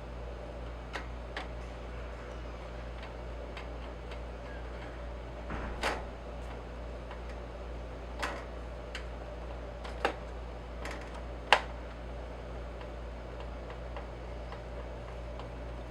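Scattered light clicks and taps, about nine of them at irregular intervals, the sharpest near the end, over a steady low hum.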